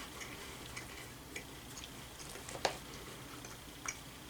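Chewing on puffed cheese snacks: a few scattered crisp crackles, the sharpest about two and a half seconds in and another near the end.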